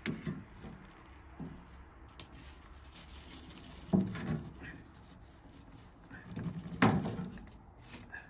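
Clunks and knocks of a sheet-metal tin can being handled and lifted off a chicken over embers, with two louder thumps about four and seven seconds in.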